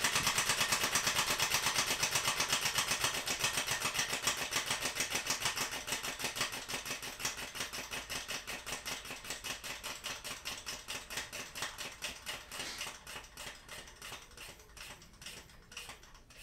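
3D-printed compressed-air engine running down: a rapid rhythm of exhaust puffs and clatter at each stroke that slows steadily and fades as the air tank's pressure falls, almost stopped near the end.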